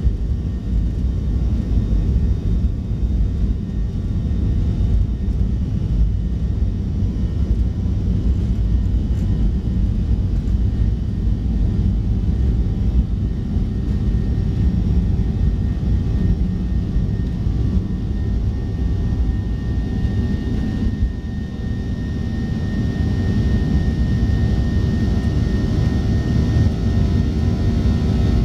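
Boeing 737-700 takeoff roll heard from inside the cabin: a loud, steady low rumble of the CFM56-7B jet engines at takeoff power and the wheels on the runway, with a thin engine whine over it. About two-thirds of the way through, a higher steady whine joins in.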